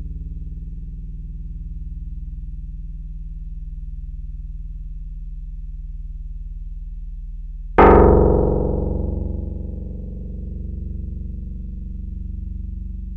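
Korg EX-800 analog synthesizer bass patch holding a steady low drone. About eight seconds in, a new note hits with a bright, loud attack that fades over a couple of seconds back into the sustained low bass.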